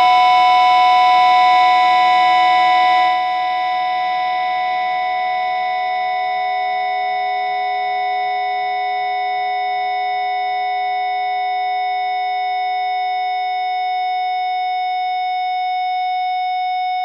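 A sustained electronic drone chord of several steady, unchanging pitches, the band's closing drone at the end of the song. Its highest tones fade out about three seconds in, and it then holds steady at a slightly lower level.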